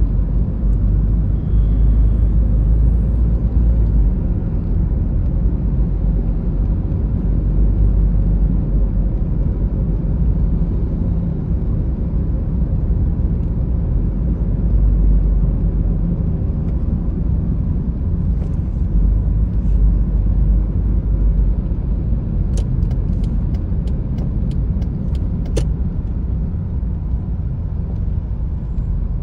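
Road noise heard inside a moving car's cabin: a steady low rumble of tyres and engine. About three-quarters of the way through there is a short run of sharp clicks.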